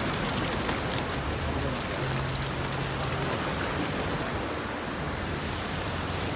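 Steady rushing noise, with faint crackling ticks in the first second or two and a faint low hum underneath.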